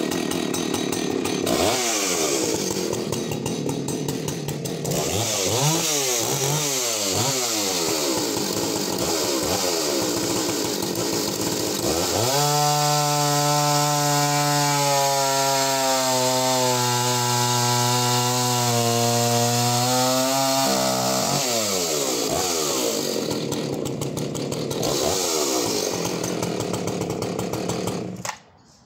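Husqvarna 285CD two-stroke chainsaw revved up and down repeatedly, then held at full throttle for about eight seconds while cutting through a 17–18 inch larch log, its pitch steady and lower under load. After the cut it revs up and down again, and the engine cuts off suddenly near the end.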